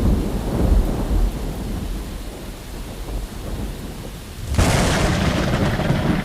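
Thunder rumbling over rain: a low rolling rumble dies away, then a sharp thunderclap cracks about four and a half seconds in and rolls on.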